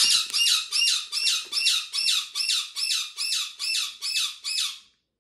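A pet green parakeet squawking over and over, harsh high calls about three a second, stopping near the end.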